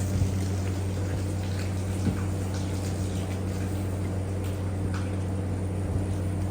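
Steady low drone of a running machine, with a few faint clicks and knocks.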